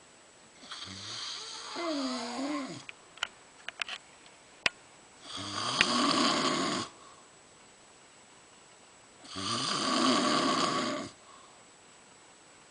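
A woman snoring: three long snores about four seconds apart, each lasting a second and a half to two seconds. A few short, sharp clicks fall between the first and second snore.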